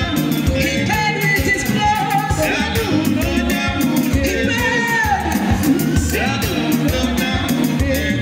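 Live band music: two women singing into microphones over amplified band accompaniment with a steady beat.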